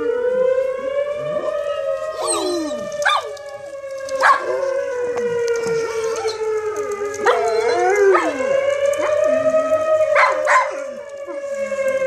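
Outdoor civil defense warning siren sounding in its monthly test, a steady wail that slowly rises and falls in pitch. Dogs howl along with it, gliding up and down beneath the siren, and give several sharp barks, the loudest moments, a few seconds apart.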